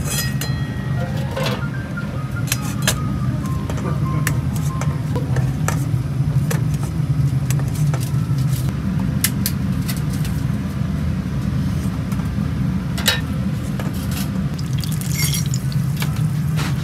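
Metal ladle clinking and knocking against a hammered aluminium pan as simmering soy-based broth is spooned over fish, over a steady low kitchen hum.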